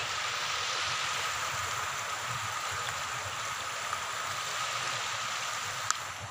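Water from an irrigation canal pouring over a small concrete weir, a steady rushing sound.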